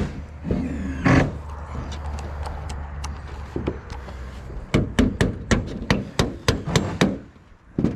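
Hammer blows: a single knock about a second in, then a quick run of about nine sharp strikes, roughly three a second, near the end.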